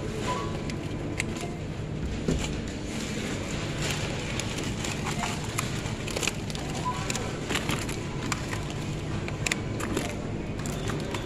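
Irregular rustles, knocks and clicks of groceries and reusable shopping bags being handled at a supermarket checkout, over a steady store hum. A few short, faint electronic checkout beeps sound near the start, in the middle and near the end.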